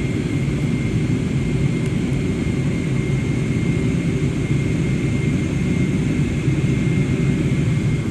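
Jet airliner engines running steadily: a dense low rumble with a thin, steady high whine over it.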